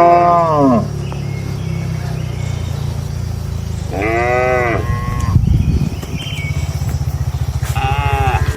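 Cattle mooing: three short calls, each rising and falling in pitch, one at the start, one about four seconds in and one near the end, over a steady low rumble.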